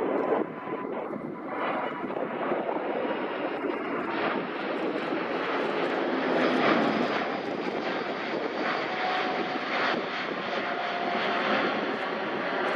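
Jet airliner's engines, a steady rushing noise that swells a little about halfway through and then eases.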